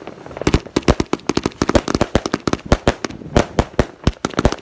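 A multi-shot firework cake, the 'Patriot', firing a rapid uneven volley of shots, several launches and bangs a second with crackle between them.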